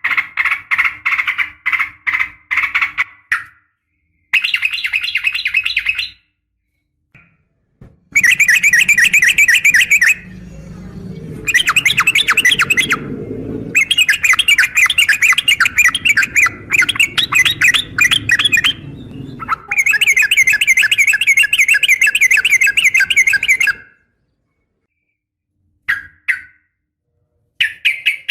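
Yellow-vented bulbul (trucukan) giving loud, fast chattering call bouts with short pauses between them, a female's call to a male.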